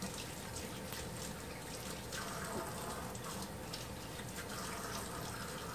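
Kitchen tap running steadily into the sink while hands are washed under it.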